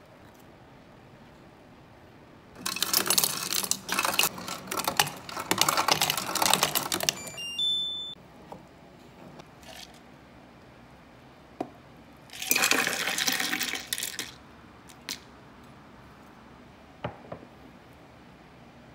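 Nescafé Dolce Gusto Genio S capsule coffee machine's pump running noisily for about five seconds as it brews an espresso into a mug. A few seconds later, ice cubes tumble and clink into the coffee for a second or two.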